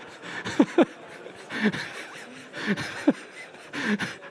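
Audience laughing: a hall full of people chuckling, with single laughs breaking out about once a second.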